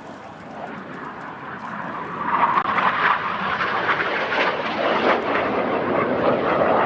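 Jet noise from the Red Arrows' synchro pair of BAE Hawk T1 jets flying past, growing louder over the first two to three seconds, then staying loud.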